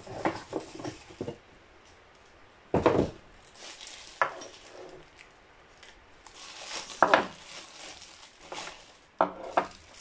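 Unpacking a plastic-wrapped ceramic wax warmer from a cardboard box: scattered knocks and clinks of the pieces on the table, with plastic wrap and cardboard rustling. The loudest knocks come about three and seven seconds in.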